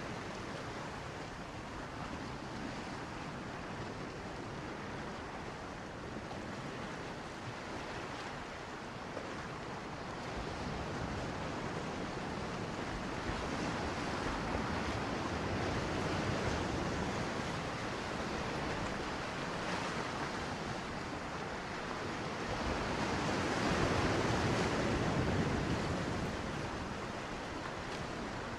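Steady wash of waves and moving water, heard from a camera held underwater in the shallows, swelling a little louder about halfway through and again near the end.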